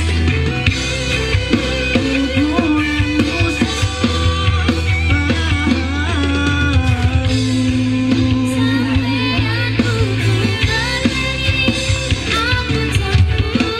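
Recorded music with a drum beat and strong bass playing loud through a DAT DT-1502 portable speaker with two 15-inch woofers, being sound-checked.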